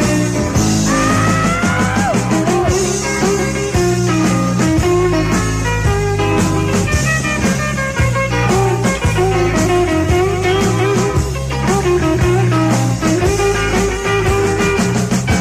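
Rockabilly band playing an instrumental break with no vocals. An electric lead guitar bends and slides notes, most clearly about a second in, over a walking double-bass line and drums.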